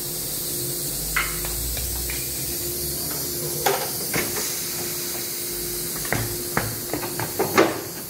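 A mounted tyre on a steel wheel knocking and thudding on a tiled floor as it is handled and rolled, with a quick run of knocks near the end, the loudest of them then. A steady hiss and a faint hum run underneath.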